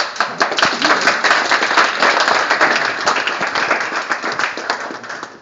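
Small audience applauding: many hands clapping together, starting all at once and thinning out over about five seconds.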